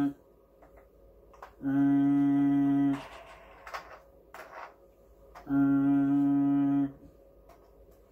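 A man humming one steady low note, held for over a second, twice, with plastic toy handling rustles and light clicks in between.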